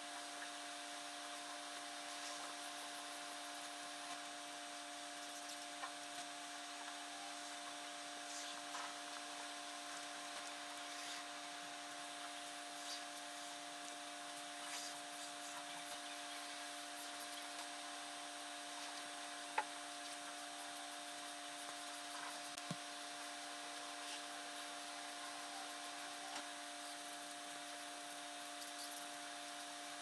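Brush-tip felt marker rubbing and scratching across paper as an area is coloured in, over a steady hum. A single sharp click stands out about twenty seconds in.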